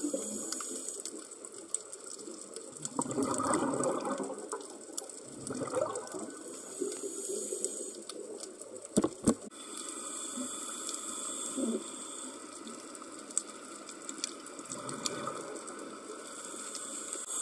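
A scuba diver's breathing heard underwater: the regulator hisses on each inhalation and bursts of exhaled bubbles follow, in a slow repeating cycle. Two sharp knocks come close together about nine seconds in.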